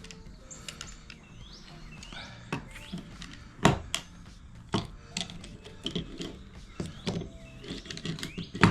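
Parts of a vacuum clamp kit being unpacked by hand: a string of sharp clicks and knocks, about eight of them, as zip ties are snipped and the plastic fittings are handled.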